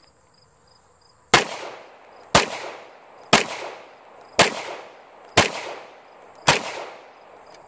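Six 9mm pistol shots from a CZ Shadow 2, about one a second, each with a short echo trailing off. Crickets chirp steadily in the background.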